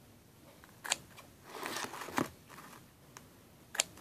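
Scissors snipping through slime: three sharp snips about a second apart, with a softer rustling sound before the second.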